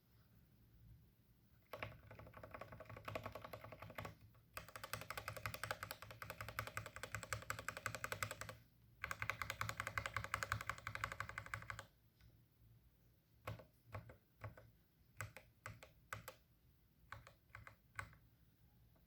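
Unlubed linear mechanical keyboard switches clacking under key presses: three runs of very rapid, dense presses, then a dozen or so slower single presses near the end.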